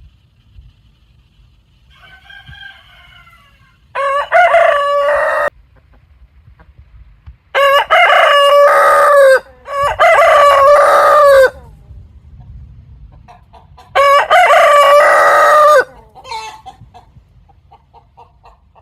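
Roosters crowing: a faint crow about two seconds in, then four loud crows of one to two seconds each, followed by a few short clucks near the end.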